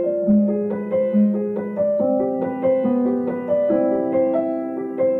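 Background music: a soft piano melody, a new note about every half second over held lower notes.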